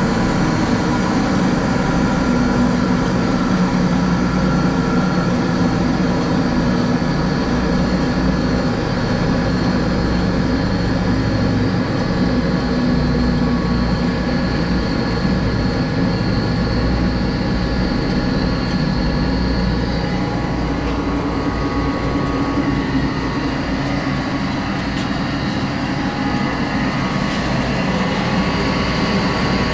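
Marvel 8-Mark-1 variable-speed vertical bandsaw running under power, a steady loud machine hum from its motor and blade drive. The blade-speed handwheel is being turned, and the pitch of the hum shifts a few times.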